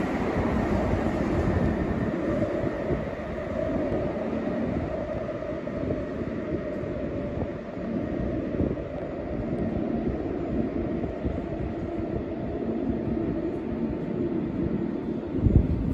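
Taipei Metro train pulling away from the underground platform and running off down the tunnel, a steady rumble that slowly fades. A short low thump near the end.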